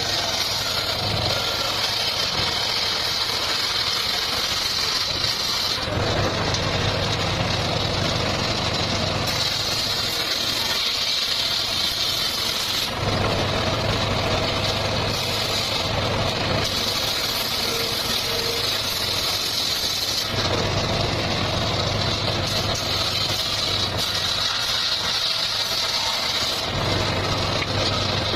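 Circular sawmill saw running continuously. Every few seconds its sound switches back and forth between a high whine and a lower, heavier tone.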